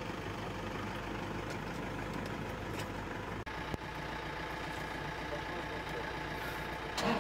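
A vehicle engine idling with a steady low hum, which dips briefly about three and a half seconds in. A louder sound comes in right at the end.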